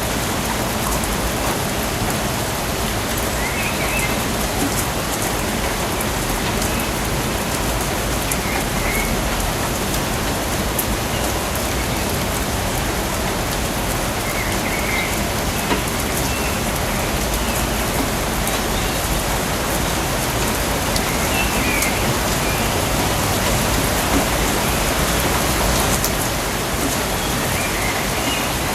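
Steady rainforest rain falling on foliage and ground, an even wash of drops. Faint short chirps sound every several seconds above the rain.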